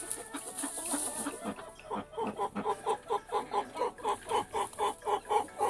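Quail calling in a rapid, even series of short clucking notes, about four a second, starting about two seconds in.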